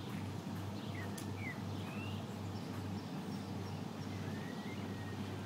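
Low steady hum of the excursion ship's engines as it pulls away from the quay, with a slow throb in it. A few short bird chirps sound over it.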